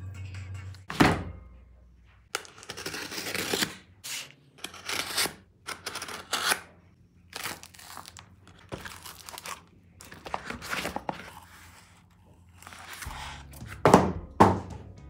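A taped cardboard parcel being opened by hand: a run of short ripping and scraping bursts of packing tape and cardboard, with a thump about a second in and two sharp knocks near the end.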